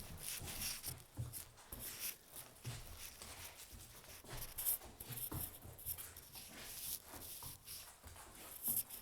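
Puppy playing, biting and leaping at a toy: irregular scuffs, taps and rustles of paws and mouth working at it.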